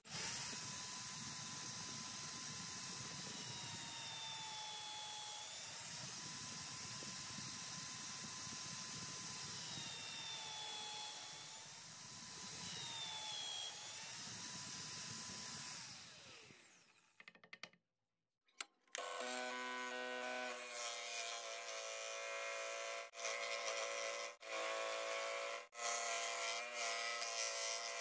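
Electric drill boring holes into a wooden block, its motor whine steady and dipping in pitch several times as the bit bites into the wood, then stopping. After a short gap, a scroll saw runs and cuts through the wood.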